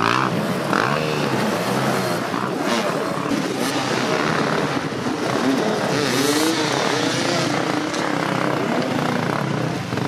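Several enduro dirt bike engines revving up and down together, their pitch rising and falling with repeated throttle bursts.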